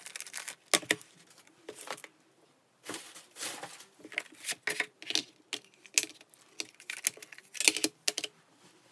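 CD albums being handled and stacked: an irregular run of light clicks and knocks from the cases, with short rustles and scrapes in between.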